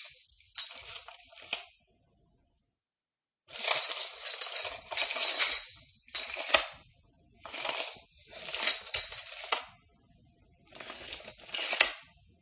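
Metal tape measure, its steel blade sliding in and out of the case in about nine short rasping runs, most ending in a sharp click.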